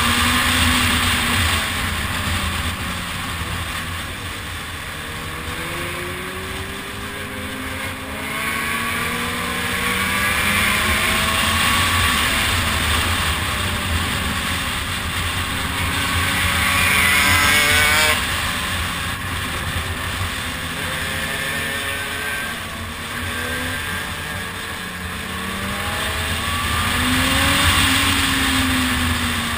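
Motorcycle engine heard from on the bike while riding, its revs climbing and falling several times through the bends and gear changes, with one sharp throttle-off about two-thirds of the way through, over constant wind and road noise.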